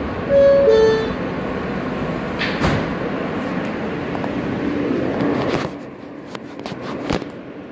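New York City subway car's two-note door chime, a higher note then a lower one, over the rumble inside the car, followed by a thump about two and a half seconds in and a few sharp clicks near the end.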